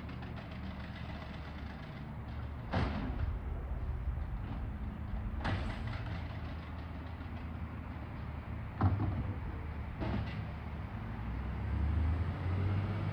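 Garbage truck engine running with a steady low rumble, broken by four sharp bangs from the truck emptying trash bins, the loudest about nine seconds in. The engine grows louder near the end.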